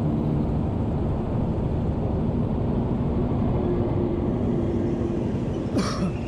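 Honda RS150R motorcycle riding at a steady speed: wind rush and road rumble with a faint, even engine hum underneath. A single short knock comes near the end.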